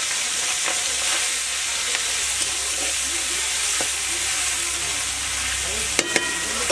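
Turmeric-coated prawns frying in hot mustard oil in an aluminium kadai: a steady loud sizzle, with a metal spatula stirring them and clinking twice against the pan about six seconds in.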